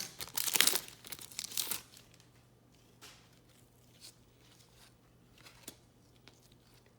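Trading-card pack wrapper torn open and crinkled during the first two seconds, followed by a few faint clicks of cards being handled.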